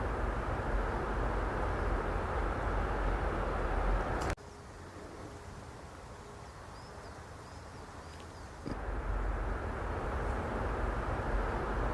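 Steady outdoor background noise, a rumbling hiss. It cuts abruptly to a much quieter passage about four seconds in and comes back just as abruptly about nine seconds in.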